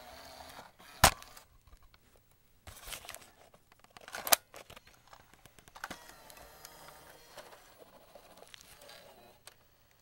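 Cassette tape and its plastic case being handled: sharp plastic clicks, the loudest about a second in and another just after four seconds, with a cluster of smaller clicks and soft rattling between.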